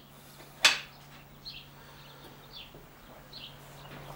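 A single sharp metal clank about half a second in, from handling the rear of a metal-cutting chop saw while its keeper plate is being fitted. A bird chirps faintly a few times afterwards.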